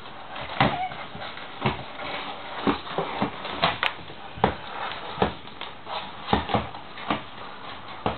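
Tortoise shell knocking on a wooden floor in a mating attempt: a sharp clack every half second to second, unevenly spaced.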